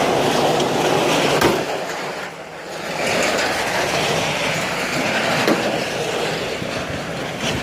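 Scrap metal being unloaded at a scrapyard: a steady mechanical rumble with a few sharp metal clanks.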